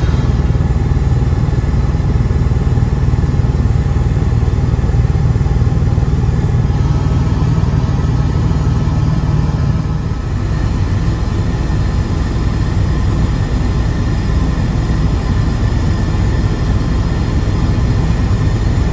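Helicopter in flight, heard from inside the cabin: a loud, steady drone of rotor and engine, heavy in the low end. The low rumble eases a little about ten seconds in.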